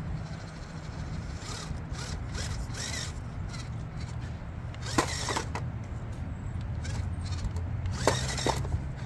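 A 1/18-scale RC rock crawler with a brushed 370 motor climbing over rocks, its drivetrain running with a steady low hum. Two sharp knocks of the truck against stone come about five and eight seconds in.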